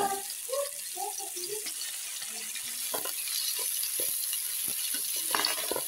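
Chopped onions sizzling in hot oil in an aluminium pan, with a metal spoon stirring them and knocking and scraping against the pan a few times. The sizzle grows louder in the second half.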